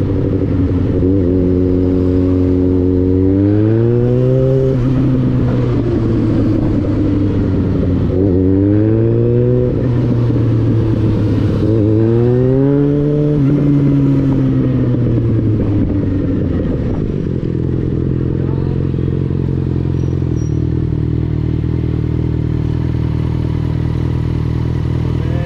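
Motorcycle engine riding in stop-and-go traffic: it rises in pitch three times, at about four, nine and thirteen seconds in, and falls back each time, then runs steadily at a low idle for the last several seconds.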